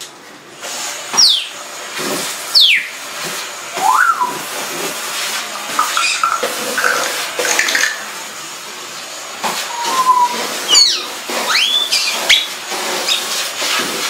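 Congo African grey parrot whistling and calling: a string of short whistles, several sweeping sharply downward, others rising, held or rising and falling, over a steady hiss-like noise.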